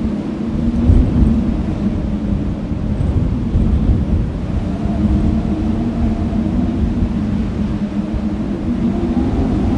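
Wind blowing over an open field, buffeting the microphone with a heavy low rumble. A steady low hum that wavers slightly runs underneath the whole time.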